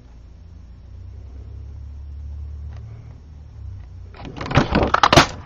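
A low rumble for the first few seconds, then, about four seconds in, green cardstock rustling and clattering against a handheld Stampin' Up leaf punch, with a sharp snap near the end as the punch cuts out a leaf.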